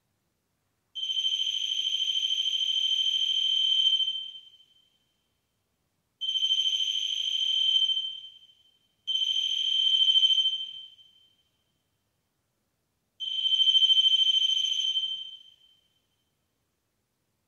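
REM pod's piezo alarm sounding four times, each a steady high-pitched tone of two to three seconds that swells slightly and then fades. The alarm signals that something has come close to the device's antenna.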